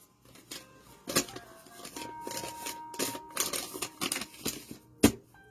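Scattered clicks and short rustles of things being handled, with a sharp click about five seconds in.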